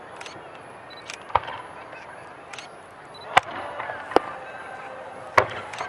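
Aerial fireworks shells bursting: four sharp bangs spread across a few seconds, the later ones loudest, over a steady background of crowd noise.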